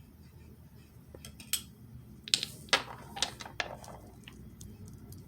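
Small sharp clicks and taps of hard objects being handled, a cluster of them between about two and four seconds in.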